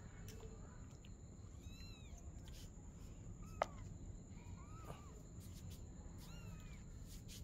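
Young kittens mewing: a handful of short, high-pitched mews, with one sharp click about halfway through.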